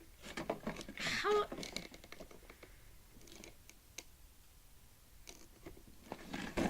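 Faint plastic clicks and handling noises from fiddling with a GoPro Hero 4 Black on its plastic packaging mount, pressing at the release tabs, with one sharper click about four seconds in.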